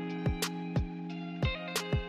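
Background music: guitar over a steady beat of about two beats a second.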